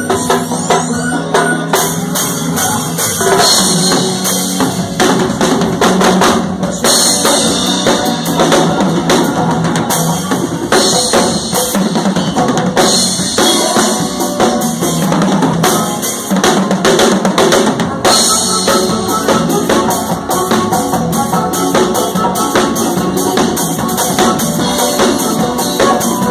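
Acoustic drum kit played live with a band: a steady groove of kick drum and snare under cymbals, with the band's other instruments mixed in.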